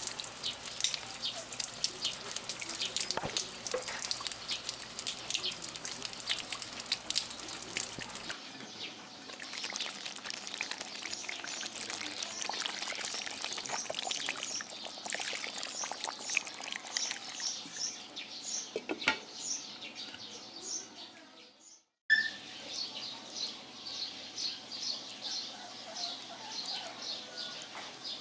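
Rain pattering on leaves, then water poured from a bottle into a wok of stew, then birds chirping in quick repeated bursts over the simmering pot.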